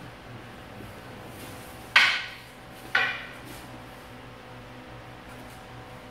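Two sharp wooden clacks about a second apart, each ringing briefly: aikido jo staffs striking together in paired practice.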